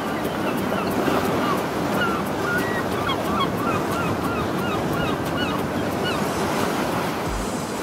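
Ocean surf washing steadily, with many short chirping bird calls over it, thickest in the middle stretch.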